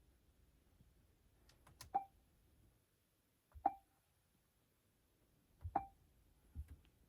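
Car stereo head unit giving three short beeps, each with a click as a button or the touchscreen is pressed, about two seconds apart, followed by a softer tap near the end.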